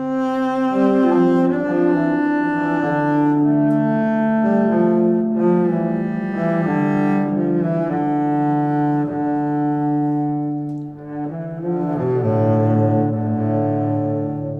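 Background music: slow, sustained low string-like chords, with the notes changing every second or so.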